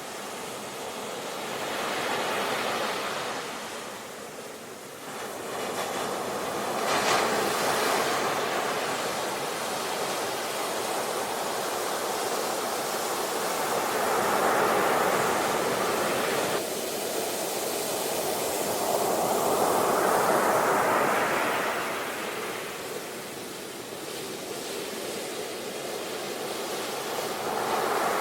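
Ocean waves breaking and washing ashore, the surf hiss swelling and ebbing in slow surges every several seconds.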